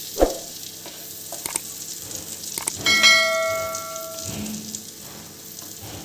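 Butter and minced garlic sizzling in a flat frying pan on a low flame while a wooden spatula stirs them. There is a knock near the start, and about three seconds in a metallic clang rings out for about a second, the loudest sound here.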